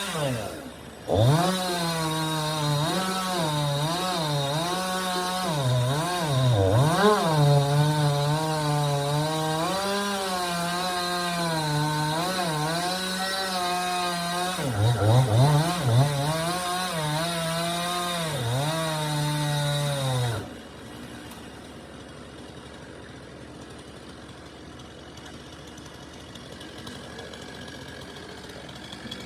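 Two-stroke chainsaw running at high revs and cutting tree wood, its engine note sagging and picking up again as the chain loads and clears. The throttle drops briefly about a second in. The saw cuts off about two-thirds of the way through, leaving a fainter steady hum.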